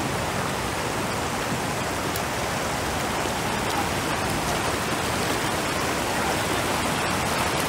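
Steady, even rushing hiss of water, with no changes or separate events.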